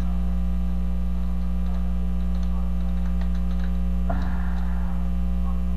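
Steady electrical mains hum with faint computer keyboard clicks as text is typed, and a brief soft noise about four seconds in.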